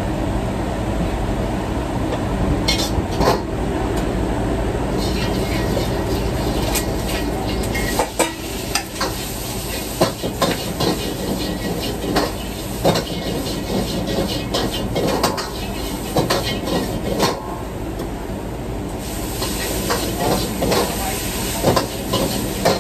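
Stir-frying in a wok on a commercial gas wok burner: food sizzling over the burner's steady rumble, with a metal utensil scraping and knocking against the wok. The knocks come roughly once a second in the second half.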